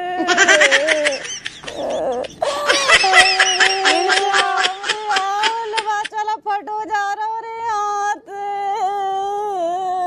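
A woman crying loudly in a theatrical way: a high, drawn-out wail broken by runs of rapid, gasping sobs in the first second and again from about two and a half to six seconds in.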